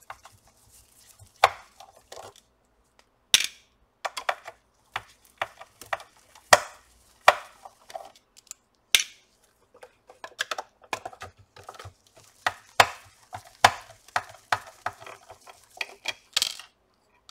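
Irregular clicks and taps of a screwdriver backing small Phillips screws out of a soundbar's housing, with the light clatter of screws and tools being handled and set down.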